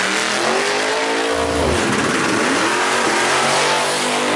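Drag racing car's engine revving hard, its pitch climbing and then dropping sharply about a second and a half in and again around three seconds in.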